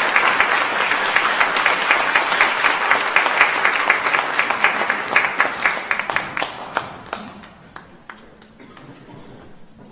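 Audience applauding, a dense patter of many hands that thins out about six and a half seconds in and dies away to a few scattered claps.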